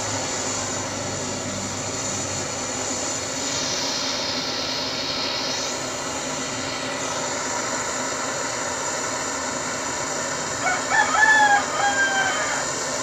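Handheld butane torch on a gas canister hissing steadily as its flame heats a copper tube joint for soldering. Near the end a rooster crows, the loudest sound.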